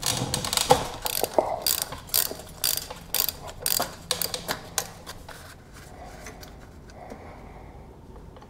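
Socket ratchet wrench clicking in short runs, about two clicks a second, as a plug on the motorcycle's final drive is wound out; the clicking stops about five seconds in.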